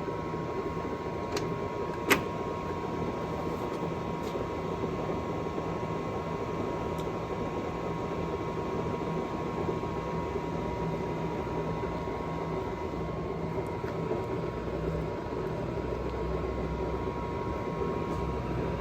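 JET GH1460ZX toolroom lathe running at a low spindle speed of 80 RPM: a steady hum with a faint steady whine. A single sharp click comes about two seconds in.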